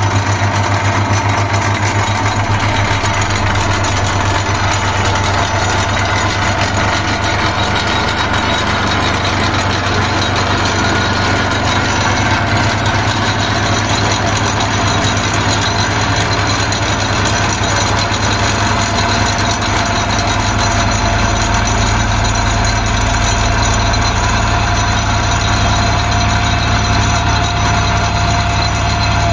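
An engine running steadily and loudly, with a constant low hum and no change in speed.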